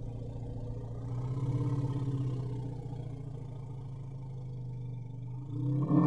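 Elephant giving a long, low rumble that swells a little a second or so in, then breaks into a louder call with a rising pitch near the end.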